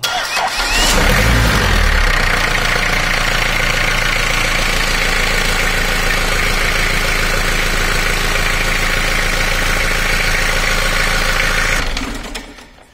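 Engine on a test stand turned over by its starter motor. It starts abruptly, rises in pitch over the first second or so, runs as a steady whirring for about ten seconds, then winds down and stops near the end.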